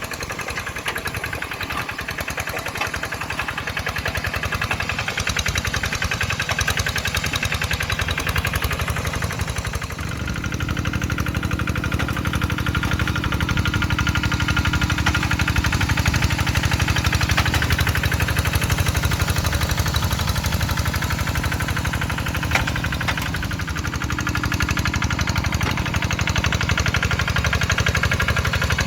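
Kubota RD85DI2s single-cylinder diesel engine of a two-wheel hand tractor running steadily with a knocking diesel beat. About ten seconds in it gets louder with a stronger low tone, and its pitch dips briefly near the 23-second mark before steadying.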